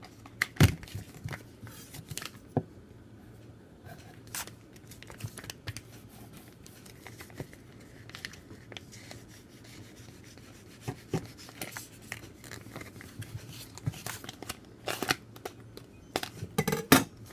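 Plastic snack packaging being handled and opened: scattered crinkles and sharp clicks, with a louder burst of rustling near the end.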